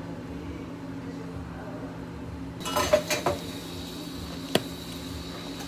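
Clear plastic dome lids being pressed onto two plastic cups of iced coffee. A short clatter of clicks and knocks comes about three seconds in, then one sharp snap about a second and a half later, over a steady low hum.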